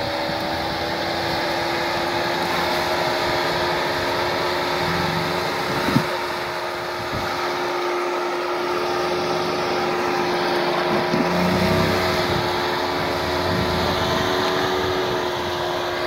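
A steady motor whine holding one pitch throughout, over a lower rumble that rises and falls, with a single sharp knock about six seconds in.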